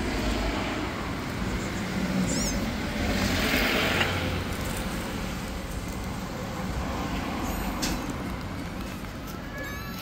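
Steady street traffic noise with a low rumble, swelling about three to four seconds in as a vehicle passes; near the end, a few small kitten mews begin.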